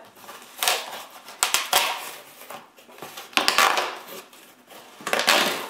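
Cardboard shipping box being opened by hand: its flaps are pulled back and the cardboard scrapes and rustles in about four short bursts, roughly a second apart.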